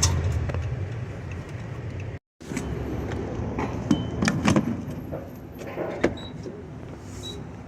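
A car's engine humming low, then, after a brief cut about two seconds in, keys jangling among several clicks and knocks.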